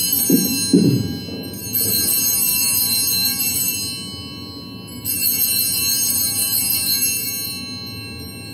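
Altar bells, a cluster of small bells, rung in three shakes: one already ringing, and two more starting about two and about five seconds in, each fading over a couple of seconds. They mark the elevation of the chalice at the consecration. A short low sound comes just under a second in.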